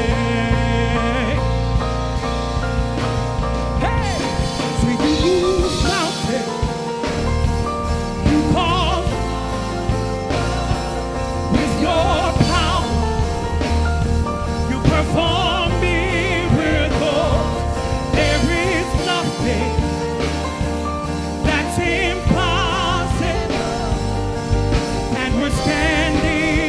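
Gospel worship song played by a band with singing, steady and continuous.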